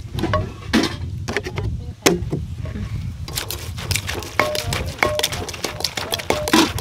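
Wooden pestle pounding green papaya salad in an earthenware mortar: quick knocks of wood on the clay bowl and the shredded papaya. The knocks are sparse at first, then come fast and close together from about three seconds in.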